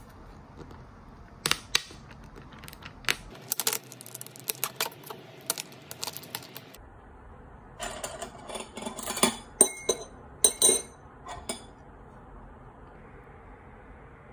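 Thin plastic film crackling and crinkling as it is peeled off a plastic tteokbokki tray, in bursts of sharp clicks, the loudest near the end before it stops about 11 seconds in.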